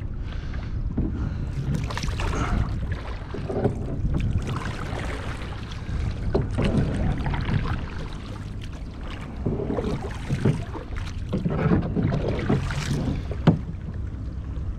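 Paddles dipping and pulling through the sea as a small plastic boat is rowed by hand, with water splashing and lapping at the hull in repeated surges. Wind rumbles on the microphone throughout.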